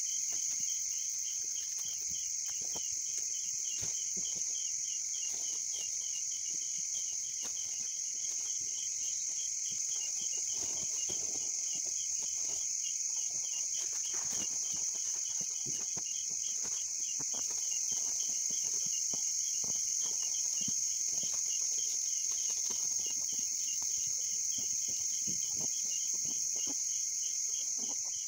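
Chorus of night insects such as crickets: a steady high-pitched trill with a rapid, even chirping repeating several times a second beneath it. Faint scattered knocks and rustles of someone moving about on the ground.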